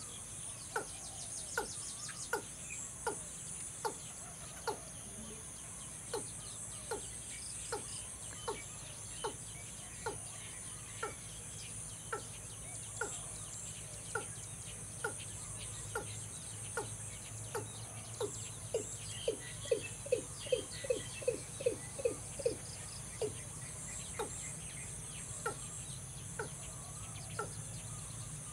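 Male watercock calling: short, deep notes, each falling in pitch, repeated about once a second and quickening to a rapid run of about three a second some two-thirds of the way through.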